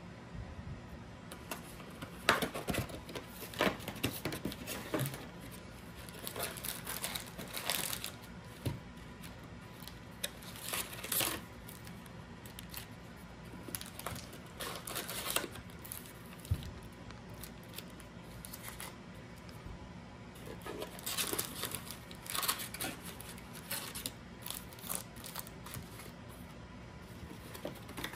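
Foil trading-card packs being handled as they are taken out of a hobby box and set down on a table: irregular crinkling of the foil wrappers with light clicks and clacks, coming in bunches with short quieter gaps.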